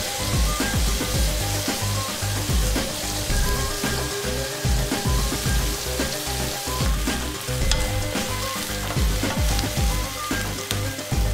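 Sausage slices cooking down in soy sauce in a frying pan, the sauce sizzling and crackling steadily. Later on a spatula stirs through the pan.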